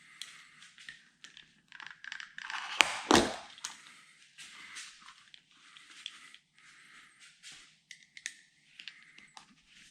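Stanley knife blade slicing through the rubber windscreen seal in a run of short scraping strokes, with a couple of sharp knocks about three seconds in.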